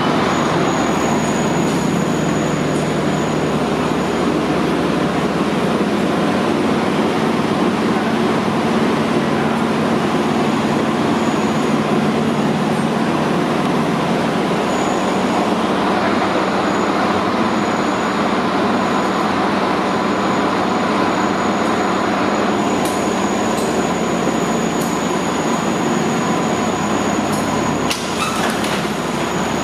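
Fire engine's diesel engine idling in the enclosed firehouse bay: a steady drone with a thin high whine, its pitch dropping slightly about halfway through. A few clicks and knocks near the end.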